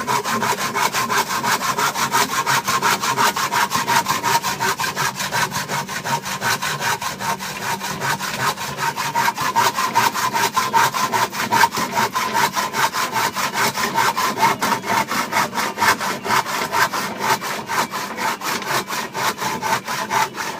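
Hand saw cutting through a pine bar with quick, even strokes.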